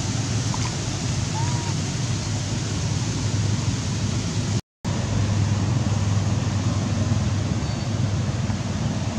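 Wind buffeting the camera microphone: a steady low rumble with a hiss over it, cutting out for a moment about halfway through.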